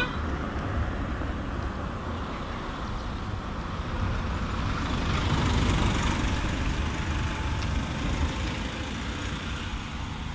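Engine and tyre noise of road vehicles taking a hairpin bend: a hatchback moving off, then a loaded mini goods truck passing close. The noise swells as the truck goes by, about five to six seconds in, then fades as it drives away.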